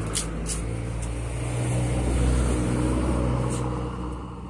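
A motor vehicle's engine hum going past, swelling to its loudest about two seconds in and fading near the end. A few short high ticks are heard early on and once more later.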